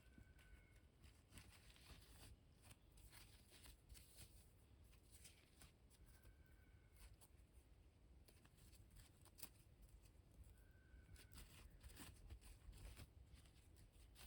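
Near silence: faint room tone with scattered small clicks and rustles.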